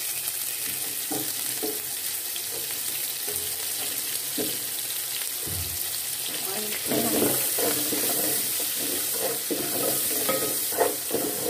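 Chopped onions sizzling steadily in hot oil in a steel pot, just added and being sautéed. From the middle on, a spoon stirs and scrapes them around the pot.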